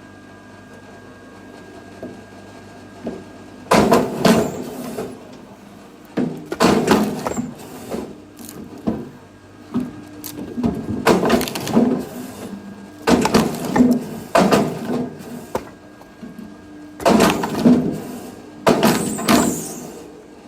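Firewood being split: a run of loud wood cracks and the clatter of split pieces, coming every second or two from about four seconds in, over a faint steady hum.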